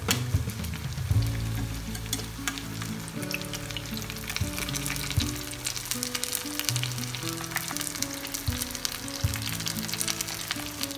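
Vegetable spring rolls (lumpiang toge) shallow-frying in hot oil in a pan: a steady crackling sizzle of fine pops.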